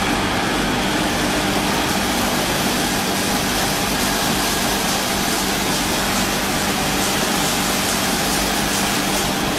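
Automatic coal-particle packing machine running steadily: an even hum from its motor under the continuous rush of coal granules pouring from the rotating feed drum into the steel hopper.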